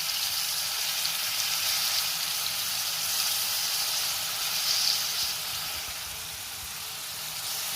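Marinated chicken pieces frying in hot oil in a pan: a steady crackling sizzle, with a brief louder flare about five seconds in.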